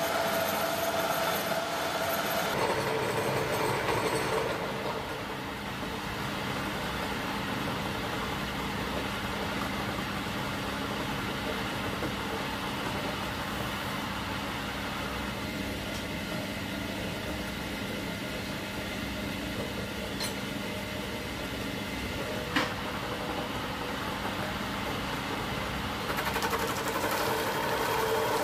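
Belt-driven wood lathe running steadily, its overhead belts and pulleys humming, while a handwheel-fed cutter bores out the hollow of a wooden mortar blank. The cutting is loudest in the first few seconds and again near the end, with one sharp click about two-thirds of the way through.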